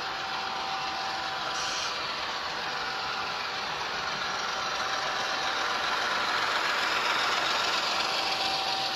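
HO scale model freight train led by an Athearn ES44AC locomotive rolling past on the track: a steady running noise with a thin whine, loudest about six to eight seconds in as the cars pass close.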